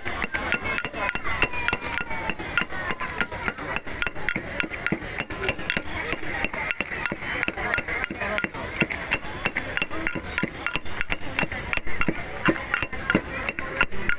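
Rapid, uneven knocking of a street vendor crushing and mashing jujubes for boroi vorta, several hard strokes a second, with background voices and music.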